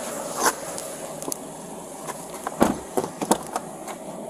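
Handling noises inside a car during a search: a few sharp clicks and knocks, the loudest about two and a half seconds in, over a steady background hum.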